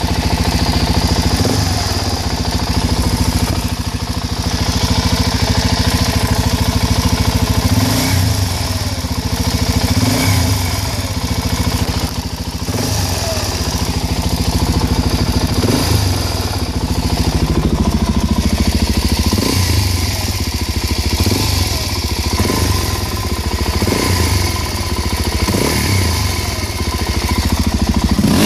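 Suzuki DR-Z400SM's single-cylinder four-stroke engine running and blipped up in short revs again and again, dropping back each time the throttle is let off. The owner says a strange noise has started on closing the throttle and doesn't know its cause.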